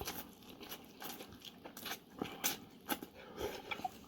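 A person eating spicy instant noodles up close: soft, wet chewing and mouth clicks at irregular moments, a few sharper ones in the second half.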